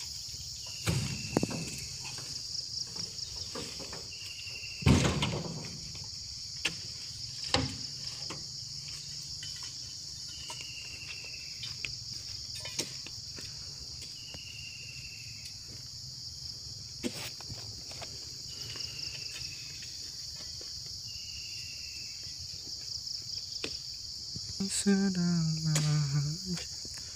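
Steady high insect chorus with a short falling chirp repeating every couple of seconds, broken by several dull thuds of oil palm fruit bunches being thrown and dropped, the loudest about five seconds in. A man's voice calls out near the end.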